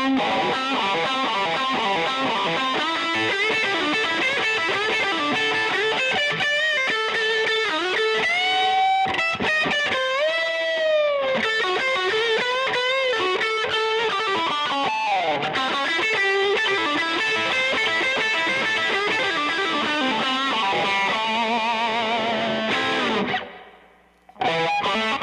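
Rock music led by a distorted electric guitar, with bent notes partway through. The music fades out and drops almost silent for about a second near the end, then starts again.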